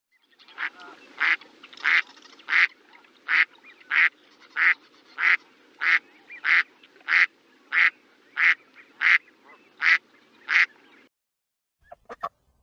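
A duck quacking over and over in a steady rhythm, about sixteen quacks at roughly one and a half per second, stopping about 11 seconds in. A few short clicks follow near the end.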